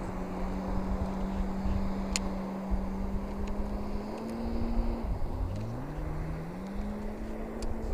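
An engine runs at a steady pitch, which falls away about five seconds in and then climbs back up as it picks up speed. There are a few sharp clicks.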